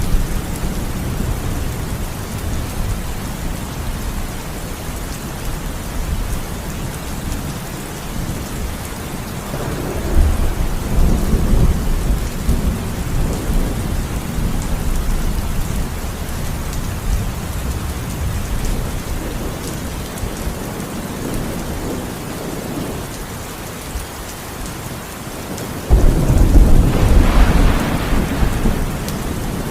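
Heavy rain falling steadily, with thunder rumbling: a low roll about ten seconds in and a louder peal that breaks in suddenly near the end.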